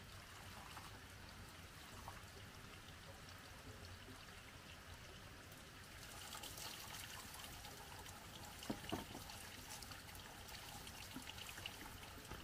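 Faint trickling, pouring water that grows a little fuller about halfway through, with two soft knocks close together about two-thirds of the way in.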